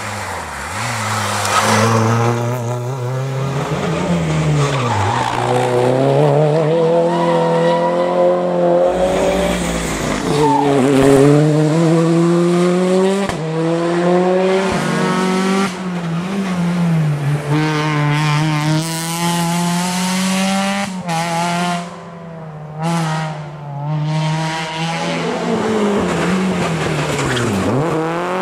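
Rally cars taking a tarmac bend one after another, first a Renault Clio RS: engines revving hard, the pitch dropping off into the bend and climbing again as each pulls away, with tyre squeal.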